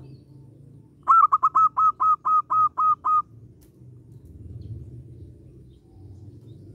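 Zebra dove (perkutut) singing: a quick run of about ten short, clipped cooing notes over two seconds, starting about a second in.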